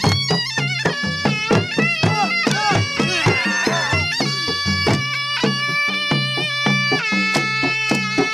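Dhol drum beaten in a steady dance rhythm under a shrill reed wind instrument playing a wavering, ornamented melody that settles into long held notes in the second half: Baloch chap dance music.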